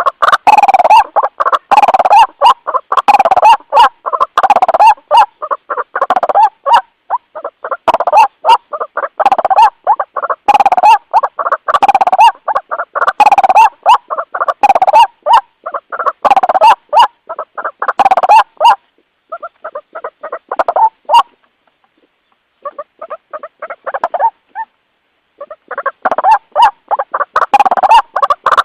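White-breasted waterhen (ruak-ruak) calling: loud calls repeated in a rapid series. About two-thirds through they turn softer and sparser, with short pauses, then come back loud near the end.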